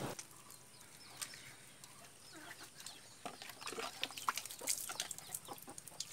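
Chickens clucking faintly, with scattered small clicks that come more often in the second half.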